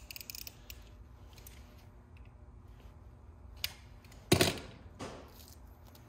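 Small parts and a paper or plastic packet being handled: light clicks and rustles, a sharp click a little past halfway, and a louder brief rustle about four seconds in.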